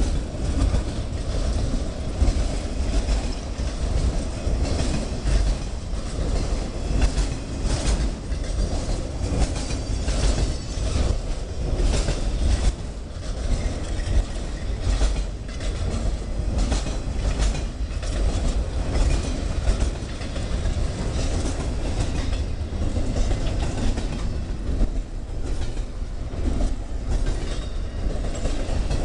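A train rolling past with a steady low rumble, its wheels clicking repeatedly over the rail joints.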